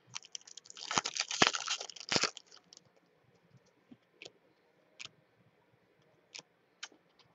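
A trading-card pack's foil wrapper crinkling as it is torn open, for about two seconds, followed by scattered light taps and flicks of cards being handled and sorted.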